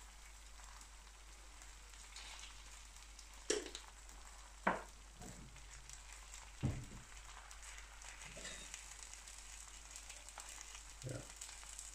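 Eggs frying on a carbon steel griddle: a faint, steady sizzle. Two sharp clicks about three and a half and nearly five seconds in, and a duller knock a couple of seconds later.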